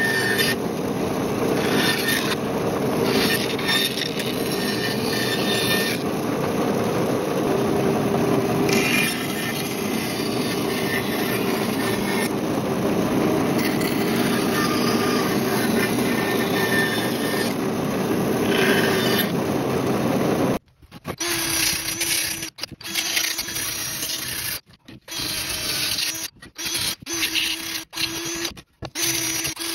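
Bandsaw running and cutting through a weathered white oak barn board, a steady dense whir. About 21 seconds in it gives way to a cordless drill spinning a brush wheel against the board, a steady tone that stops and starts several times.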